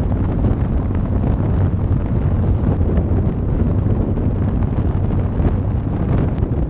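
Heavy wind buffeting on the microphone of a camera mounted at the rear of a moving kit car, over a steady low drone from the car on the road.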